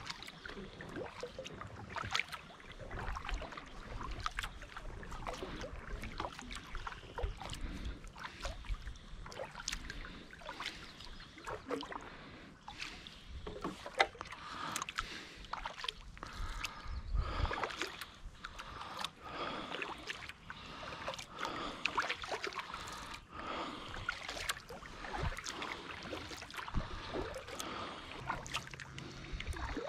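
Kayak being paddled with a double-bladed paddle: the blades dip and splash with water dripping off them, and there are frequent small clicks and knocks against the hull.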